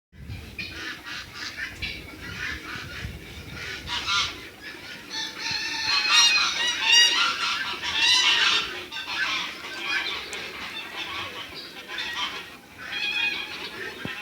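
A flock of poultry calling all at once: many overlapping short honking and squawking calls, loudest and densest around the middle.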